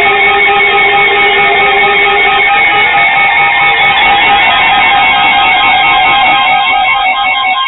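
Guitar instrumental music with sustained repeating notes, beginning to fade out near the end.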